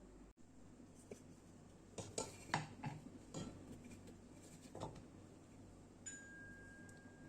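Utensils clinking lightly against dishes, with a scatter of short clicks. A faint, high, steady tone comes in near the end.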